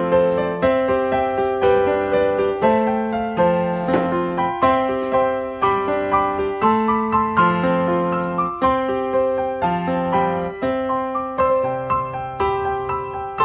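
Background piano music: a gentle melody of struck notes at an even, unhurried pace.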